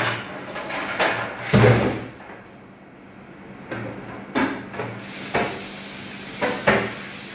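Irregular knocks and clunks of tableware being handled on a table, the heaviest about a second and a half in, with a few sharper knocks in the second half.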